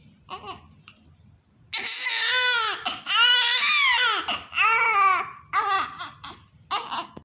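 Newborn baby crying: a few small fussing sounds at first, then from about two seconds in a run of loud wails, each rising and falling in pitch, with short breaks between them.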